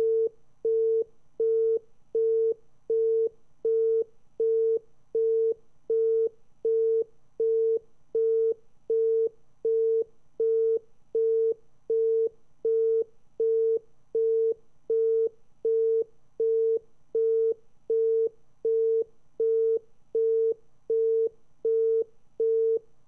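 Telephone engaged (busy) tone: a single steady tone beeping on and off in an even rhythm, about four beeps every three seconds, the British engaged-tone cadence. It signals that the line has been cut off after the call was hung up.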